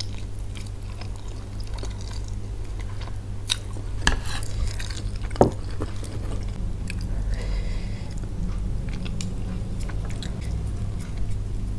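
Close-miked chewing and wet mouth sounds of someone eating fried egg and instant fried noodles, with small clicks throughout and two sharper clicks about four and five and a half seconds in. A steady low hum runs underneath.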